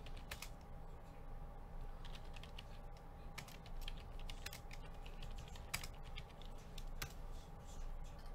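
Computer keyboard typing: scattered, irregular keystrokes and clicks over a faint steady hum.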